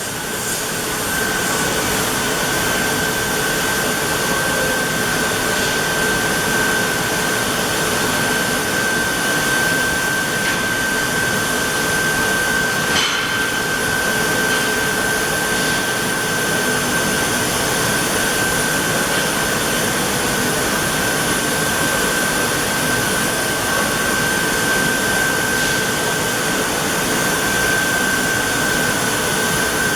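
Trumpf TCL 4050 CO2 laser cutting machine running: a steady rushing noise with a steady high whine over it, and one sharp click about thirteen seconds in.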